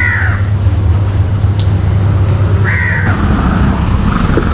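A crow cawing, two harsh calls about three seconds apart, over a steady low hum.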